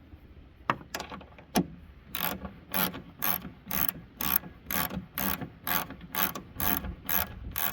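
Ratchet wrench with a 10 mm socket on a long extension clicking as it backs out a 10 mm bolt: a few single clicks, then steady back-and-forth strokes about two a second.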